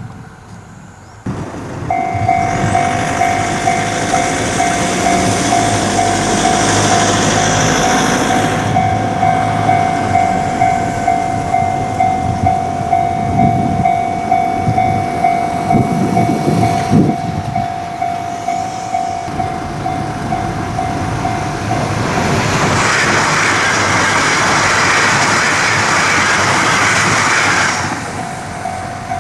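Japanese level-crossing electronic warning bell ringing with a steady repeating 'kan-kan' beat, which starts suddenly about a second in. Later a shinkansen train rushes over the crossing for several seconds, its noise swamping the bell, and cuts off near the end.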